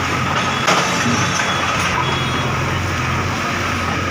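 Bulldozer engine running steadily, with a sharp knock a little under a second in.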